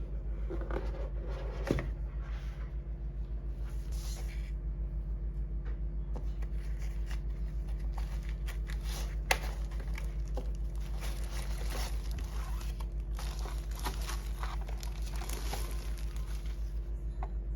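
Packaging being handled, with crinkling, tearing and rustling and a few sharp clicks, busiest in the second half, over a steady low hum.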